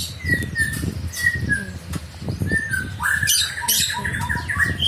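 Birds calling over and over: short high chirps about twice a second, then a longer rapid chattering call from about three seconds in. Low knocking and handling noise runs underneath.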